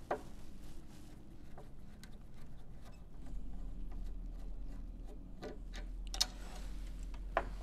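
Hand screwdriver loosening the screw that holds a roller shade's child-safe chain tensioner to the window frame: faint scattered clicks and scrapes, the sharpest two near the end.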